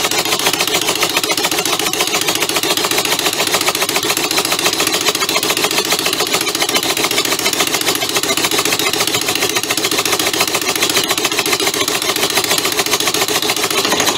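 Homemade two-cylinder compressed-air motor running fast on shop air: a rapid stream of exhaust puffs and clatter over a steady hiss of air, cutting off suddenly at the end. It runs a bit out of balance, which the builder wonders is just the nature of a two-cylinder.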